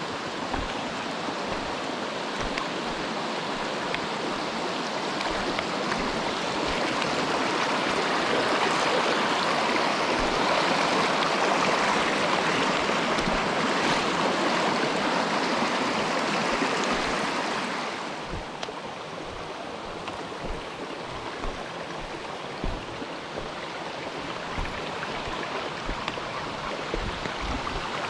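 Mountain stream water rushing, a steady even sound that swells louder through the middle and drops down fairly suddenly about two-thirds of the way in, with scattered low thumps underneath.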